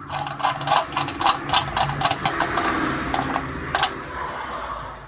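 Ratchet wrench and socket running a bolt in: a fast, uneven string of clicks over a steady hum, easing off near the end.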